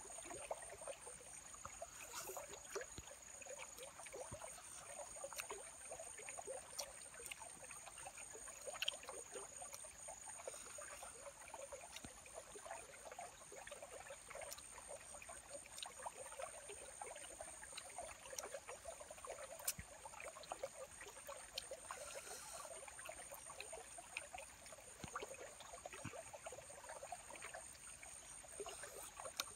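Faint outdoor ambience: a steady, high-pitched insect trill over an even, crackling rustle like trickling water, with one sharp click about nine seconds in.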